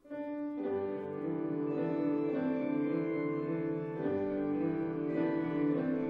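Church organ begins playing right at the start, slow chords whose notes are held steady and change every second or so.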